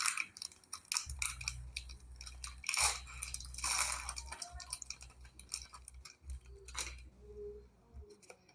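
Foil wrapper of a Pokémon booster pack crinkling and tearing as it is opened, in many irregular crackles, with a low hum underneath.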